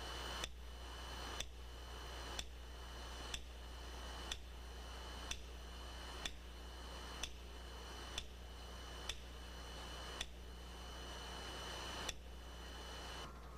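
Sharp clicks repeating evenly about once a second, over a steady low electrical hum and a thin high steady tone.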